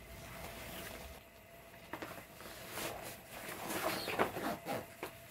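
Rustling of a Finfolk Caspian Cove fabric mermaid tail as hands pull and smooth it out, with irregular scrapes and rubs that get louder and busier from about halfway.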